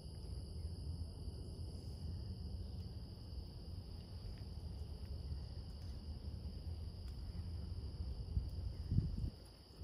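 A steady chorus of insects shrilling at constant high pitches, over a continuous low rumble. There is a brief louder thump near the end.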